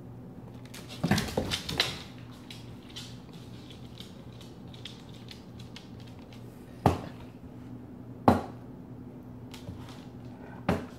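Several sharp knocks and clicks: a quick cluster about a second in, then single ones near seven, eight and eleven seconds in, over a steady low hum.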